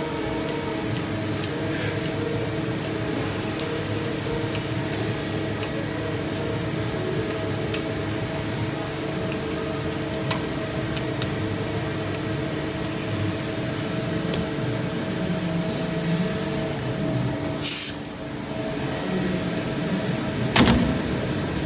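CNC machine running with a steady hum and a few held tones, with scattered faint clicks. A short hiss comes about 18 seconds in, and a sharp knock near the end.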